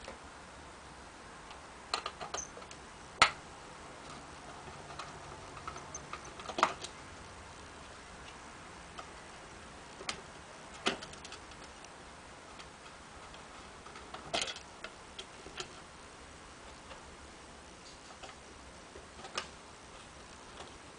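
Scattered small clicks and taps of a screwdriver working the screws out of a pinball machine's plastic cannon housing, with metal and plastic knocking now and then. The sharpest click comes about three seconds in.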